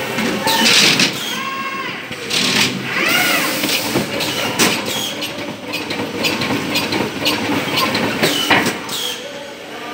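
CPS CL86 case packer running, packing 1.5 kg net bags of onions: a busy mechanical clatter of clicks and knocks, with several sharp hisses of air from its pneumatic cylinders and a couple of brief rising-and-falling squeals.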